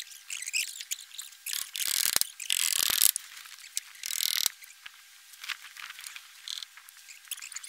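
Scraping and clicking from hand work on a snow-covered roof: three short scrapes of about half a second each in the first half, with scattered clicks between and after.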